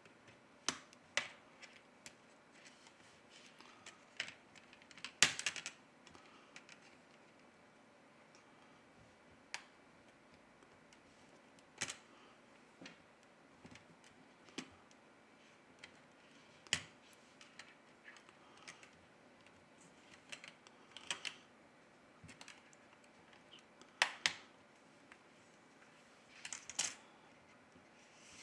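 Irregular light clicks and taps of plastic parts and small hand tools as a smartphone's middle frame is pried loose and lifted off. There are about a dozen sharp clicks spread out with pauses between them, with the loudest cluster about five seconds in.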